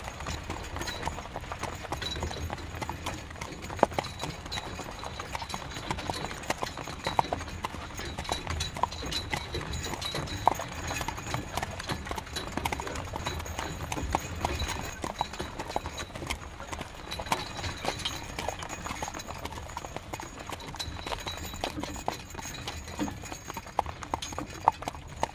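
Horse-drawn carriage on the move: a horse's hooves clip-clop steadily, with a low rumble underneath.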